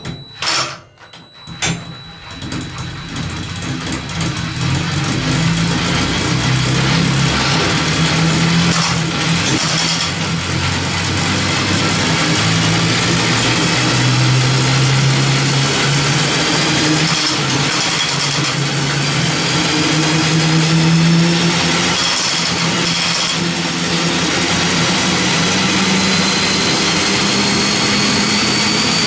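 Cordless drill whirring as it drives a go-kart's drivetrain (torque converter belt, chain and sprockets), spinning the large rear tires up to speed. A few clicks come first, then the running sound builds over several seconds and holds steady, with a high whine climbing slowly near the end.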